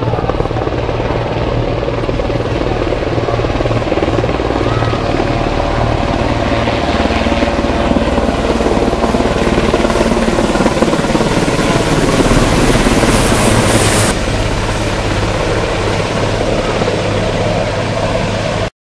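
A formation of three large military helicopters flying low overhead, with loud, steady rotor and turbine noise that cuts off abruptly near the end.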